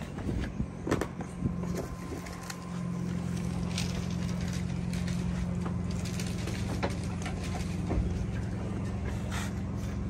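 A vehicle engine running steadily as a low hum, settling into an even drone about three seconds in. Scattered light clacks and knocks of wooden display stands and canvases being handled.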